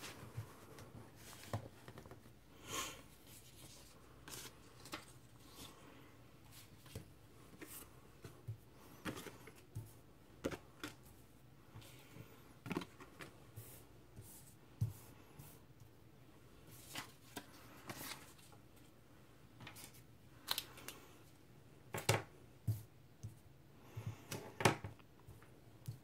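Scattered soft taps and rustles of paper cards and stickers being handled and set down on a wooden tabletop, coming more often near the end.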